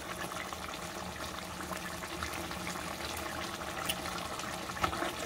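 Pot of chicken stew in palm oil simmering on the stove: a steady bubbling with small pops and crackles as the stew, still watery, cooks down. A couple of sharper ticks come near the end.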